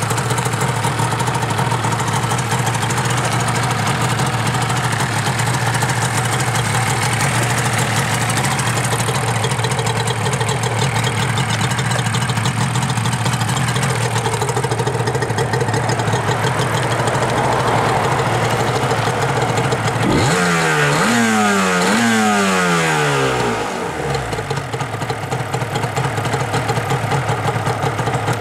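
Yamaha R1-Z's 250 cc two-stroke parallel twin idling steadily through its stock exhaust. About two-thirds of the way in it is revved in three quick throttle blips, each rising and falling back, then it settles back to idle.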